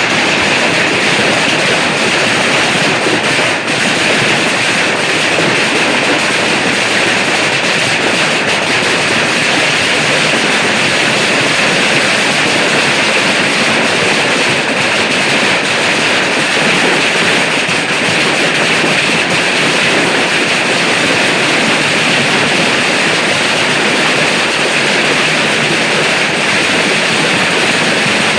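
Steady, loud rush of water in a heavy rainstorm, an even hiss with no let-up.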